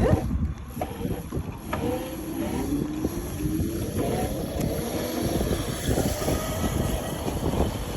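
Razor RSF650 electric mini moto's motor whining as the bike pulls away, the whine rising in pitch about two seconds in as it speeds up, over a steady low rumble.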